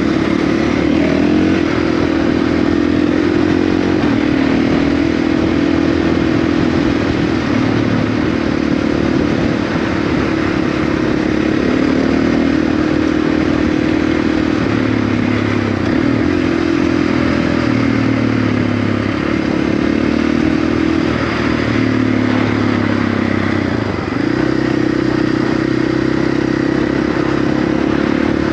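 Dual-sport motorcycle engine running under changing throttle on a dirt trail, its pitch stepping up and down every few seconds, over a steady rushing noise.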